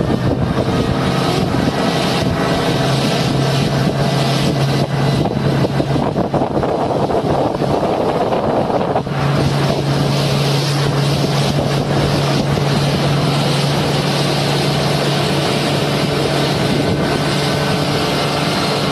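Motorboat engine running steadily at speed, with water rushing along the hull and wind on the microphone. The engine hum weakens for a few seconds near the middle, then comes back.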